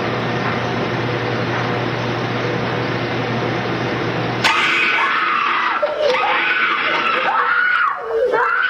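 Steady hiss and hum from an old home-video soundtrack played over a hall's loudspeakers, then a sudden loud scream about halfway through. A child screams in fright in high, wavering cries that follow a computer maze game's jump-scare.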